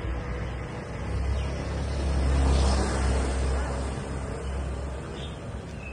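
Low rumble of a vehicle passing along the street, swelling about two to three seconds in and fading away.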